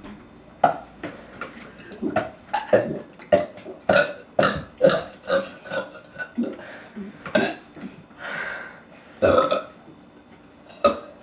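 A rapid string of short belches, about twenty in quick succession, from people forcing up gas after drinking carbonated seltzer. Near the end come a longer, drawn-out belch and then a loud one.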